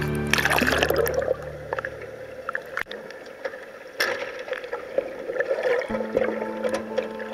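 Sea water splashing and sloshing as the camera breaks the surface, then muffled underwater bubbling and crackle with a sharp click about four seconds in. Held music notes fade out in the first couple of seconds, and a new note comes in near the end.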